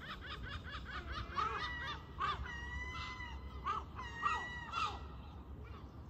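Gulls calling: a rapid series of short pitched calls with a few longer held notes, stopping about five seconds in.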